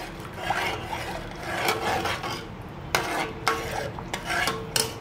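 A metal ladle stirs thick sambar in a metal pot, with wet swishing and scraping strokes. The ladle knocks sharply against the pot three times: about three seconds in, half a second later, and near the end.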